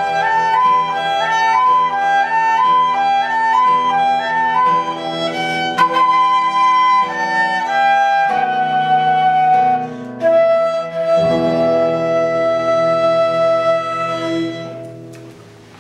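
Medieval-style instrumental music: a flute-like wind instrument plays a quick repeating melodic figure over steady held drone notes. It moves into longer notes, ends on a long held note, and fades out near the end.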